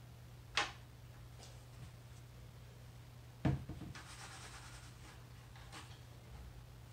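Tabletop handling sounds: a sharp tap about half a second in, then a louder knock as a plastic squeeze bottle is set down on a wooden table, followed by light rustling of a clear plastic lollipop mold being moved.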